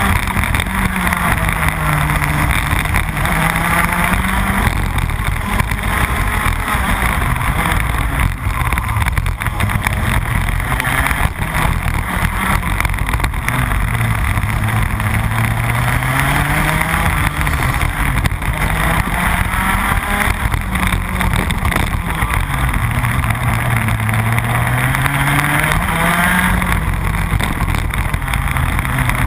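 Rotax Max 125cc two-stroke kart engine at racing speed, heard onboard. Its note climbs steadily under acceleration and drops away quickly under braking, in several long cycles, lowest around the middle and again a little past two-thirds of the way through.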